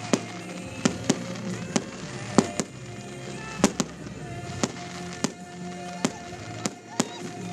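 Fireworks display: about a dozen sharp bangs and cracks at irregular intervals, with music playing underneath.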